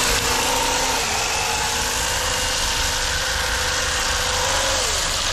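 Brushless electric motor of a Traxxas UDR RC truck whining at a steady pitch as it drifts, over a steady hiss. The whine drops in pitch about four and a half seconds in as the truck eases off.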